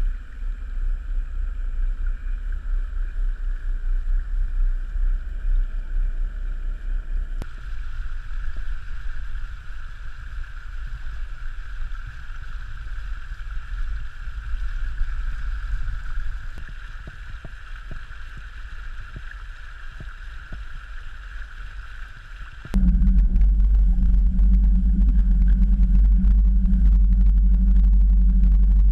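Sailboat moving through water: water rushing and splashing past the hull with wind rumble on the microphone and a steady high hum. Near the end it cuts abruptly to a louder steady low hum.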